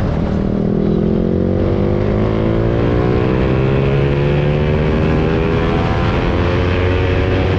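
Yamaha R15 V3's single-cylinder engine through an aftermarket exhaust, its note rising steadily as the bike accelerates under way.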